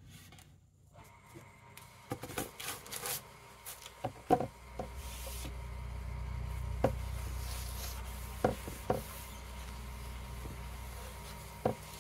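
Hands rubbing and scraping on a wooden board on a workbench, with a few sharp knocks as it is handled.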